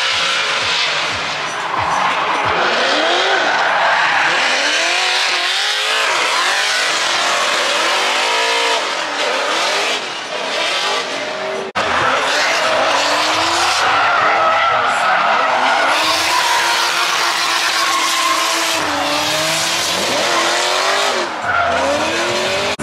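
Drift cars sliding with engines revving up and down again and again over a constant hiss of squealing, spinning tyres. The sound breaks off sharply for a moment just before the middle, then carries on.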